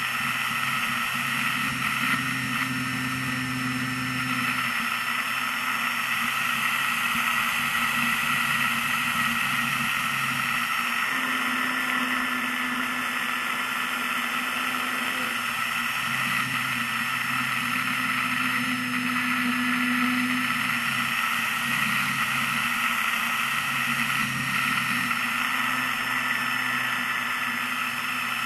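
Steady drone of an RC model airplane's motor and nose propeller heard from on board, with air rushing past. The pitch shifts slightly and a lower hum comes and goes a few times.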